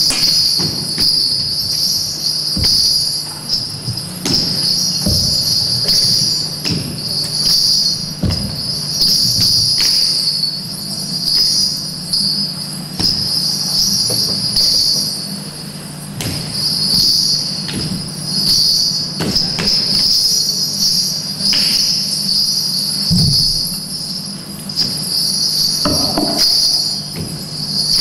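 Small bells jingling in a steady pulsing rhythm, swelling and fading about once a second, with a few faint knocks underneath.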